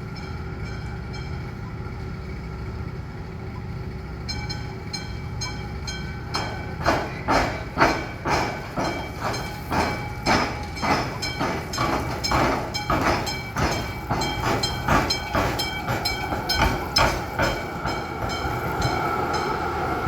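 Tram wheels clacking over the tram square, the crossing of tram and railway tracks: a low rumble, then a run of sharp clacks about two a second that starts about four seconds in and is loudest from about seven to seventeen seconds, fading into a steady rumble near the end.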